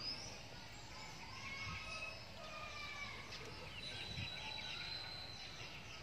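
Faint bird calls and chirps over low background noise: many short, high whistled notes, some sliding in pitch, overlapping throughout.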